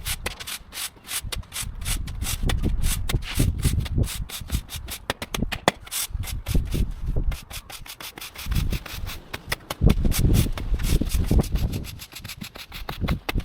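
Stiff broom brushing sand across block paving to fill the joints: a rapid, irregular run of scratchy brush strokes.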